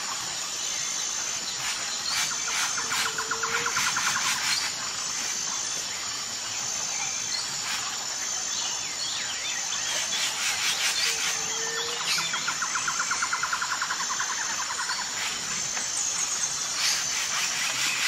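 Outdoor nature ambience of birds and insects. A high insect chirring comes in even, regular pulses over a soft hiss. Two rapid trilling songs come and go, and a brief low call sounds twice, several seconds apart.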